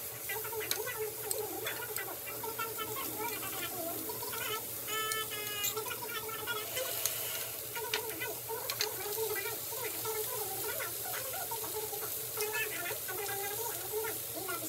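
Pork belly and seafood sizzling on a tabletop grill plate, with metal tongs clicking and scraping against the grill as the pieces are turned.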